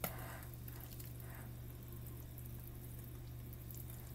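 A sharp click as the lid of a small spice jar is flipped open, then a few faint soft rustles over a steady low hum.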